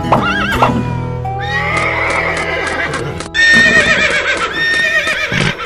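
Horse whinnying sound effects: a short warbling neigh at the start, then longer wavering neighs about a second and a half in and, louder, about three seconds in, over background music.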